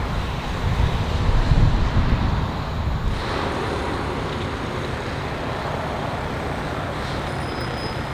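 Wind buffeting the microphone over a steady waterfront background of traffic and water noise; the gusts ease about three seconds in, leaving an even hiss.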